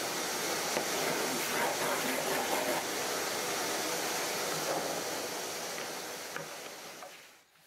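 Steady, loud hiss of compressed air from a blow gun, blasting dust off the wooden cabinet panels. It dies away over the last second or so.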